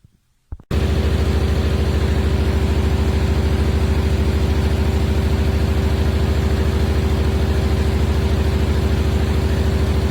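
A machine running with a loud, steady hum and a fast even pulsing, starting abruptly just under a second in.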